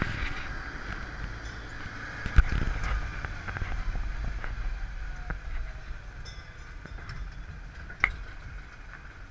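Tractor engine running steadily as it tows an open passenger carriage along a rough dirt road, with the carriage rattling and two sharp knocks as it jolts over bumps.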